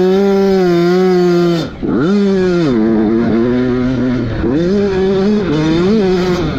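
Dirt bike engine revving hard at high rpm. The pitch dips sharply when the throttle is chopped about 1.7 s in, then climbs again and rises and falls several more times as the rider works the throttle.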